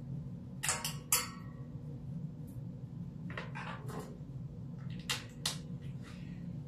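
Screws and an Allen wrench clinking as they are handled during furniture assembly: about six short, sharp metallic clicks in three pairs, over a steady low hum.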